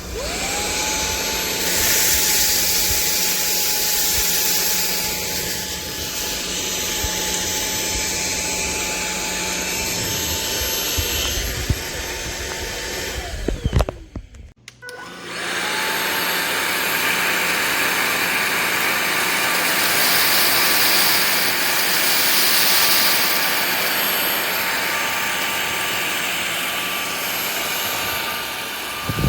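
Cordless stick vacuum switched on, its motor spinning up to a steady high whine and running. It is switched off about 13 seconds in and winds down, then is switched on again a second or so later and runs on.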